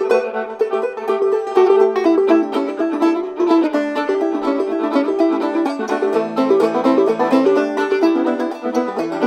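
Old-time tune played clawhammer style on open-back banjo: quick, bright plucked notes in a steady rhythm, with lower notes joining about six seconds in.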